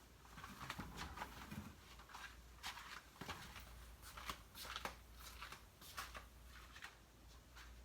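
Faint rustling with irregular sharp clicks, like something being handled close to the microphone, over a low steady hum.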